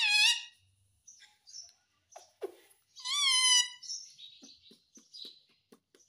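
Indian ringneck parakeet giving two loud calls, a short one right at the start and a longer, wavering one about three seconds in, with soft clicks and quieter chatter between.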